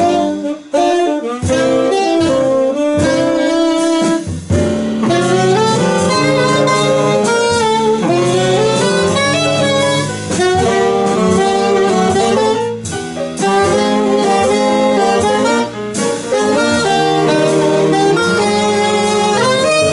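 Saxophone section of alto and two tenor saxophones playing a harmonized jazz melody together in phrases, backed by the band's rhythm section.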